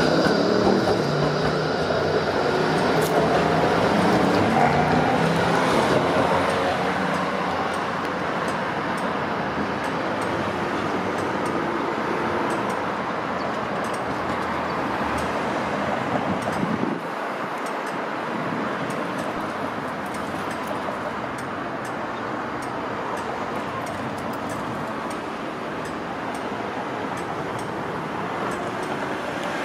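Melbourne E-class tram rolling past close by, its electric drive giving a steady high whine over wheel-on-rail noise, fading out in the first few seconds as it moves away. After that, steady road-traffic noise from passing cars.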